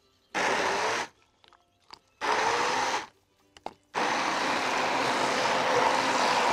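Kitchen blender motor pulsed twice in short bursts, its pitch rising as it spins up each time, then run continuously from about four seconds in, puréeing a liquid marinade of oil, melted butter, lemon juice, garlic, ginger and herbs.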